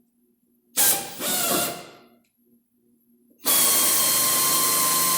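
Electric drill with a 1/8-inch bit drilling a shallow pilot hole into a spot weld on a steel rocker panel: a short burst about a second in, then a steady whining run from about three and a half seconds on.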